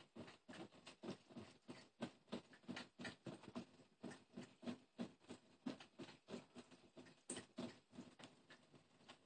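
Cat lapping water from a thin stream running from a kitchen tap: faint, quick wet laps, about three a second.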